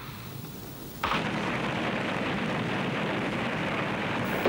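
Battle sound effects: about a second in, a sudden explosion, followed by a dense, steady rumble of combat noise that lasts to the end.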